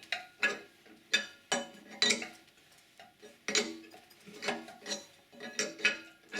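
Steel spanner clinking against the steel bottom sub of a coiled tubing connector as it is worked round to tighten the sub under load: a dozen or so sharp metallic clinks at an uneven pace, each with a short ring.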